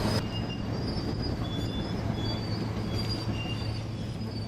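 Large crawler bulldozer working: the diesel engine runs steadily under a constant low drone, with short high-pitched squeals from the steel tracks coming and going.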